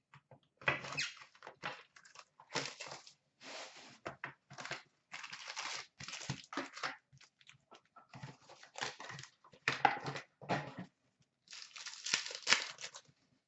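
Hobby-box packaging and trading-card pack wrappers being torn open and crinkled, in short irregular rustles and crackles with brief pauses between them.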